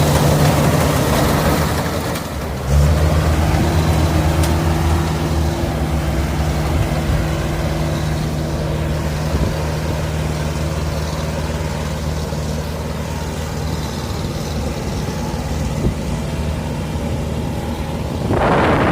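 Combine harvester engine running steadily, picking up speed and getting louder about three seconds in. Near the end, wind buffets the microphone.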